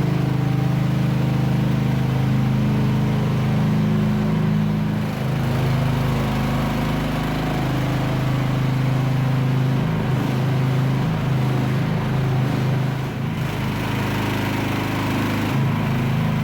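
Mini excavator's small engine running steadily under the operator's control, its pitch shifting now and then as the machine is worked.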